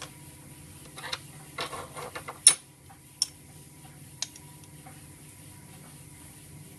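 Scattered light metallic clicks and clinks as a steel combination spanner is handled and fitted onto the gauge nut of a brass inline fuel-pressure adapter. The sharpest click comes about two and a half seconds in, with fainter ones after it.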